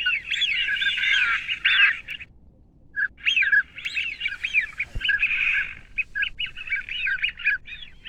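Birds calling in quick, repeated squeaky chirps, with a break of about a second before they start again.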